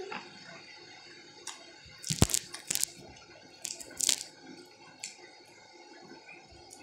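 Eating and handling noises close to the microphone: a few short crackles and clicks, the loudest cluster about two seconds in.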